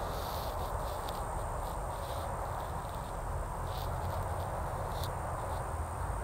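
Outdoor backyard ambience: a steady low rumble and hiss, a thin continuous high-pitched insect-like trill, and a few faint short chirps scattered through.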